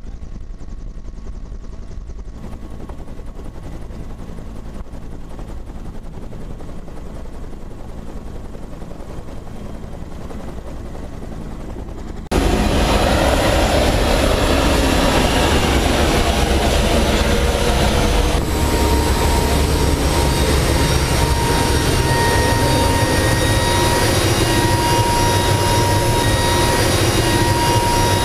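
Steady, muffled helicopter engine and rotor noise heard from inside the cabin. About twelve seconds in it cuts to much louder rotor and turbine noise from a Bell UH-1 Huey hovering close by. About six seconds later it changes to the steady whine of a C-130 Hercules's four turboprop engines running on the ground.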